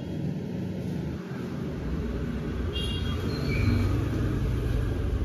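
Steady low rumble of street traffic, with a few faint short high tones about three seconds in.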